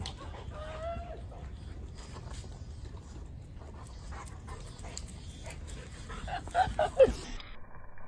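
A dog whining: a short rising whine about half a second in, then a burst of louder whines near the end, the last one falling in pitch.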